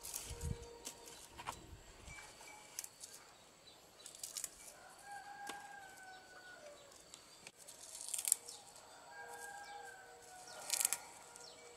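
A rooster crowing twice, each crow a drawn-out call of a second or two with a slight fall in pitch. Scattered sharp knocks sound between and over the crows, the loudest about eight seconds in and again near the end.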